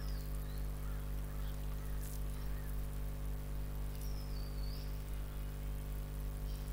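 Steady low electrical hum with a faint hiss, the room tone of a desk microphone, with two faint high chirps, one just after the start and one about four seconds in.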